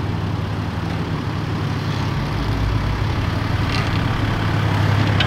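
Toyota LandCruiser 4WD's engine running steadily at low revs as it crawls down a steep sand dune track, a low hum that grows slowly louder.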